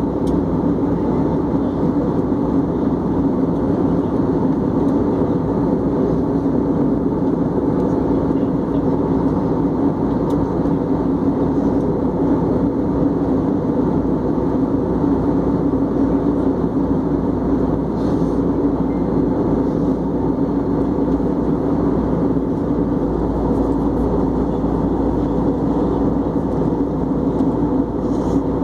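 Airbus A320 cabin noise in flight, heard from a window seat: the steady drone of the jet engines and rushing airflow, with a constant hum underneath.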